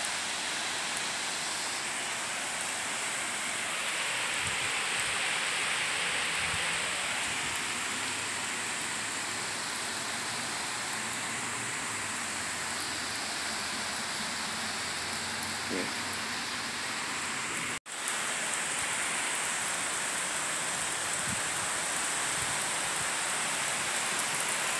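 Light rain falling steadily on wet pavement and parked cars, an even hiss that cuts out for an instant about three-quarters of the way through.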